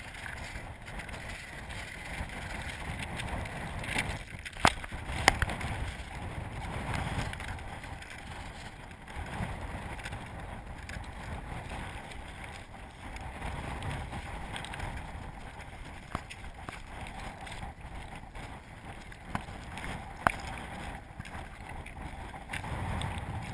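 Wind rumbling on an action camera's microphone while the wearer moves over loose scree, with footsteps crunching on stones. A few sharp knocks stand out, the loudest about five seconds in.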